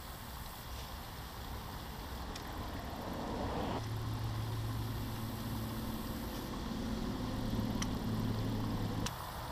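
An engine running with a steady low hum, which starts about four seconds in and cuts off sharply near the end, with a few faint clicks.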